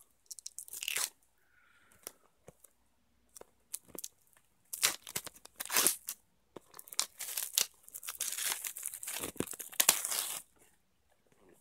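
Plastic shrink-wrap being torn open and crinkled in irregular bursts, busiest in the second half.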